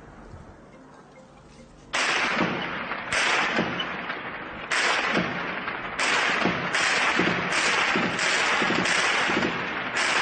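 A series of loud bangs from a street clash, about nine over the last eight seconds, starting suddenly about two seconds in. Each bang has a long echoing tail that runs into the next.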